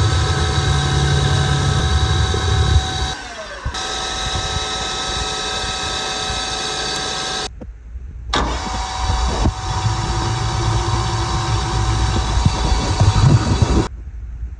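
Metal lathe running with a steady gear whine while a carbide tool faces a spinning titanium bar, then a twist drill bores into it. The machine sound breaks off abruptly a little past halfway, comes back, and falls away near the end.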